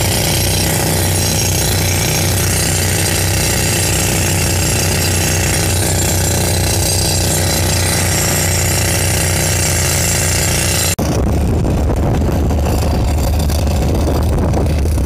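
Compressed-air rock drill (jack hammer) hammering into a granite boulder to bore a blast hole: a loud, steady, dense clatter. About eleven seconds in, the sound turns lower, dominated by the steady running of a diesel engine, with drilling behind it.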